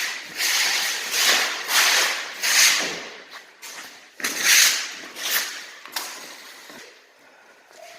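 A box being beaten up: a series of hard, noisy blows and crunches about half a second apart, dying away over the last few seconds.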